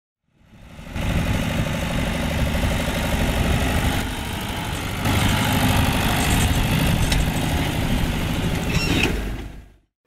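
John Deere 2850 tractor's diesel engine running steadily. It fades in about a second in and fades out near the end.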